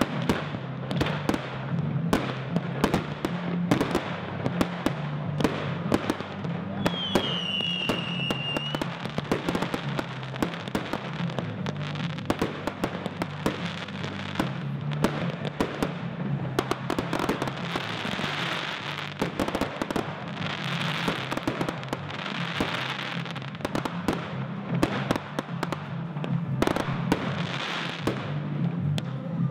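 Fireworks display: a rapid, continuous string of bangs and crackles from cakes and aerial shells bursting overhead, with a short whistle about seven seconds in.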